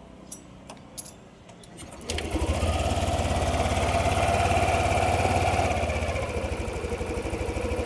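A few light clicks, then about two seconds in a Yamaha NMAX 155 V2 scooter's single-cylinder engine starts and settles into a steady idle. On this first start after the stock idle air control valve was refitted, the idle is normal.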